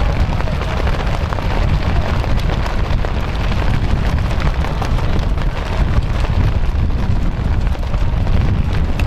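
Wind buffeting the camera microphone: a loud, steady, rumbling roar, heaviest in the low end, with a crackly hiss over it.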